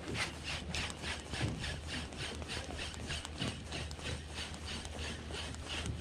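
Spinning reel, an Okuma Ceymar 25, being cranked at a steady pace, a rhythmic rasping of about five strokes a second as the jig is wound in.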